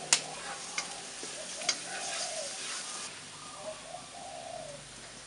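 Minced garlic sizzling in hot oil in a wok as it is stir-fried, with a few sharp knocks of the utensil against the pan, the loudest right at the start.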